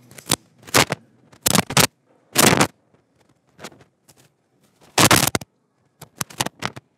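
Short scraping, rustling noises in irregular bursts, each under half a second. The loudest is about five seconds in, and a quick cluster of four comes near the end.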